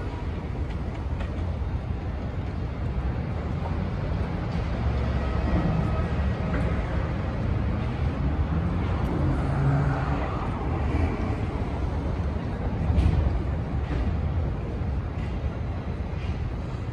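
City street traffic: a steady low rumble of passing cars and buses.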